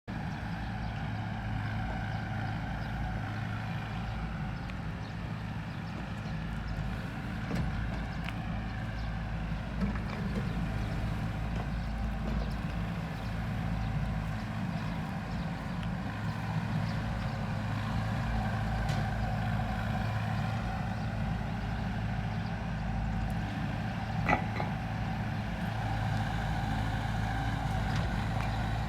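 Heavy construction machinery engine running steadily, with a single sharp clank about 24 seconds in.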